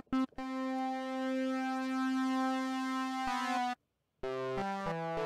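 Arturia Pigments software synthesizer's wavetable oscillator, its tone shaped by phase distortion, playing two short notes, then one long held note that turns brighter near its end. After a short gap comes a quick run of lower notes stepping in pitch.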